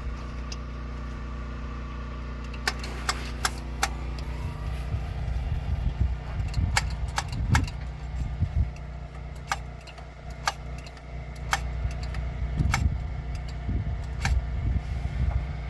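Scattered sharp metallic clicks and clinks of small parts and tools being handled during work on a carburetor, over a steady low hum.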